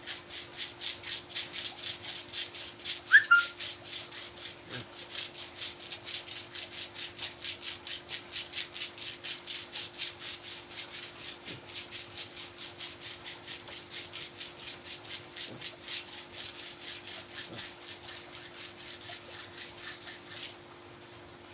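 Rhythmic rubbing strokes of a hand massage on skin, about three a second, stopping just before the end. A short high squeak comes about three seconds in, and a steady low hum lies underneath.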